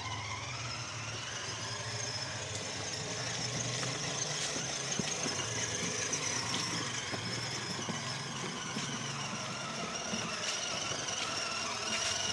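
Battery-powered ride-on toy car's electric motor and gearbox whining steadily as it drives, the whine rising in pitch in the first couple of seconds, over the rumble of its hard plastic wheels rolling on rough concrete.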